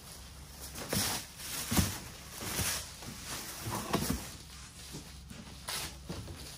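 Tissue paper and plastic packaging rustling and crinkling in a series of short bursts as items are pulled out of a cardboard box by hand.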